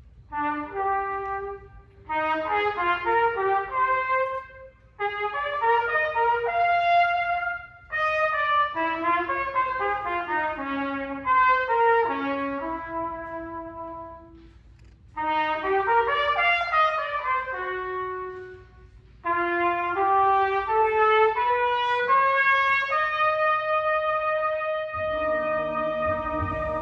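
Solo trumpet playing a slow melody in separate phrases with short breaks between them, ending on a long held note. Lower instruments come in underneath near the end.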